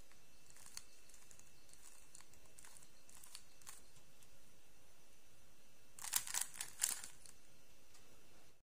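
Stickerless 3x3 Rubik's-type cube being turned by hand through an F2L algorithm: light plastic clicks of the layer turns, then a quick run of louder clacks about six seconds in.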